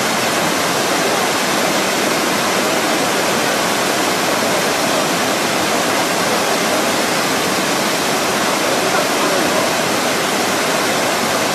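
Waterfall pouring down a rock face, a steady, unbroken rush of water.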